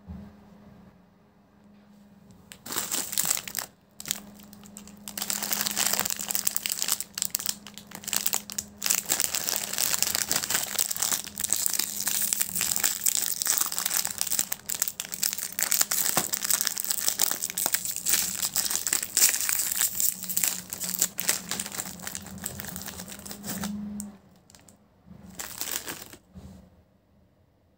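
Crinkly plastic wrapper of an Oreo biscuit pack being handled and torn open, rustling and crackling continuously. It dies away near the end, with one more short burst of crinkling.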